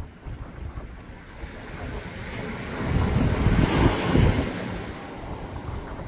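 Small sea waves washing in against the shore rocks, one wave swelling and hissing louder about halfway through, with wind rumbling on the microphone.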